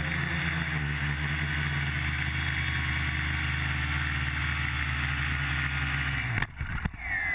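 Electric motors and propellers of an FPV H-quad quadcopter buzzing steadily in flight, heard from the onboard camera. About six seconds in, a couple of knocks as it sets down on the stones and the buzz cuts off, then a short falling whine.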